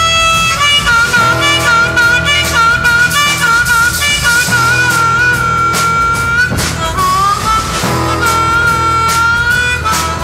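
Live blues-rock band recording: a harmonica plays long, wavering notes with pitch bends over a steady, repeating bass and guitar riff. The harmonica comes in about half a second in, and it dips and bends back up a little after the middle.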